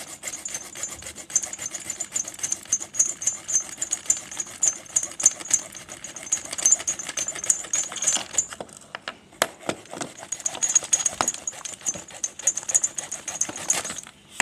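Rapid, even cutting strokes through the RC crawler's bars. They stop about eight seconds in and start again about two seconds later.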